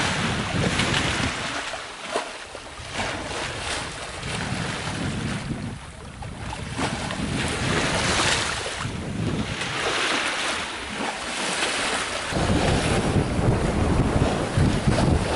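Sea water rushing and washing past a sailboat under way, swelling and fading every few seconds, with wind buffeting the microphone, heavier in the last few seconds.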